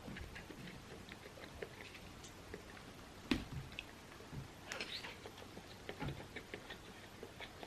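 A person chewing and eating food close to the microphone, with scattered small clicks and one sharper click a little over three seconds in.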